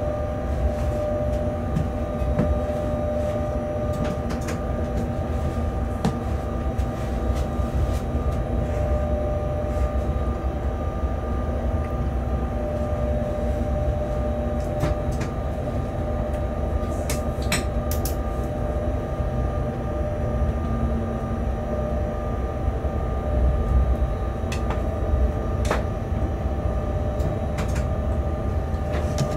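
Locomotive running alone, heard from inside its cab: a steady low rumble under a constant hum, with occasional short clicks and knocks.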